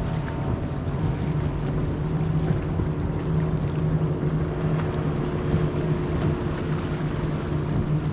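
Boat motor running steadily: a constant low hum under an even rush of wind and water noise.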